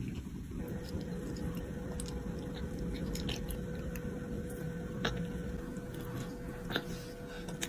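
A person chewing and biting on a chicken drumstick, with a couple of sharp clicks in the second half.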